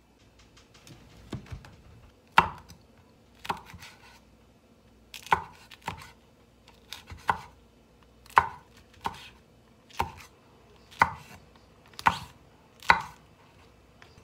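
Kitchen knife slicing green chili peppers on a wooden cutting board: about a dozen separate, unhurried chops, each a sharp knock of the blade on the wood, roughly one a second, starting about two seconds in.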